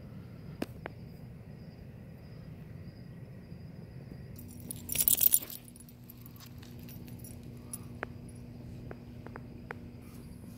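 Metal tags on a small dog's collar jingling in a loud, brief cluster about halfway through, with a few faint single clicks before and after, over a steady low background hum.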